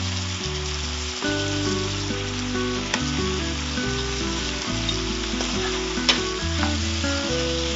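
Chicken pieces, shallots and dried red chillies sizzling in oil in a kadai while a spatula stirs them, with two sharp clinks of the spatula on the pan, about three and six seconds in. Instrumental background music with held notes plays underneath.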